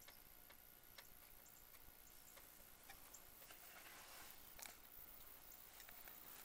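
Near silence: faint scattered clicks and a brief soft rustle about four seconds in as the rifle scope camera is handled and swung, over a thin, steady, high electronic tone.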